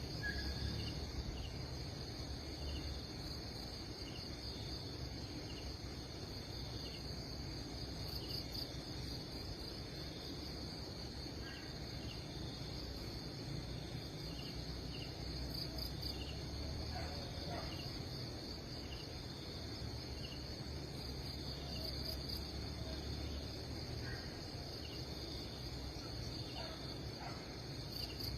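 Steady high insect chorus of crickets, with short chirps repeating about once a second and a low rumble underneath.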